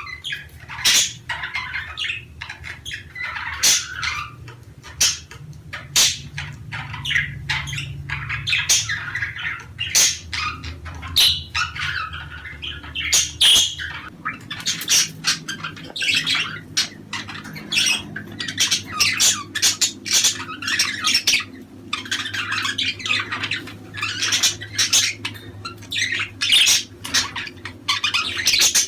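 Several budgerigars chattering and squawking in rapid, overlapping short calls that go on without a break.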